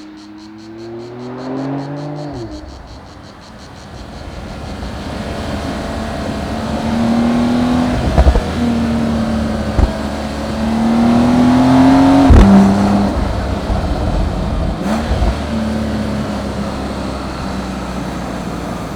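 Porsche 911 Turbo (992) twin-turbo flat-six accelerating through the gears. Its note climbs in pitch and drops suddenly at each upshift, twice, and is loudest just before the second shift, about twelve seconds in.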